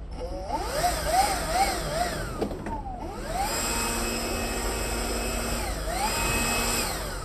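A motor running, its pitch wavering up and down several times, then rising and holding steady, with one brief dip and rise near the end.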